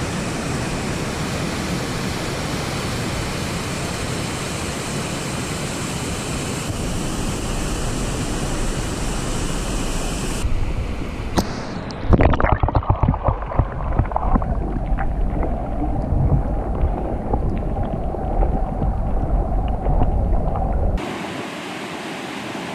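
Waterfall: a steady, even rush of falling water. About halfway through the sound turns muffled, with a gusty low rumble of wind buffeting the microphone. The clear rush comes back abruptly near the end.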